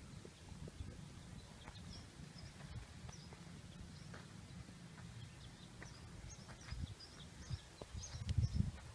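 Small birds chirping faintly and often, over a low rumble that grows louder near the end.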